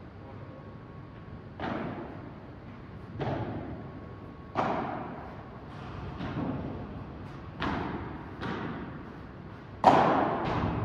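A padel rally: the ball is hit back and forth with rackets, about eight sharp hits roughly a second and a half apart, each echoing in the large hall, with the loudest hit near the end.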